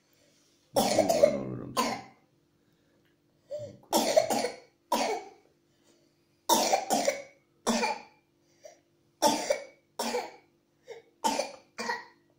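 A sick young girl coughing badly, about a dozen harsh coughs in several short bouts.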